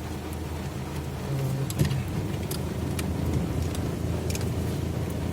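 Off-road vehicle's engine running steadily at low speed, with scattered sharp clicks and one louder knock about two seconds in.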